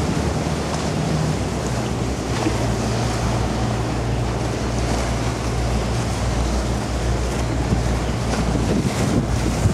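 Harbour pilot boat's engine running with a steady low drone as it passes close at speed, its wake splashing and churning on the choppy water.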